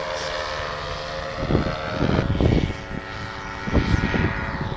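Paramotor engine and propeller droning steadily overhead, with gusts of wind rumbling on the microphone from about a second and a half in.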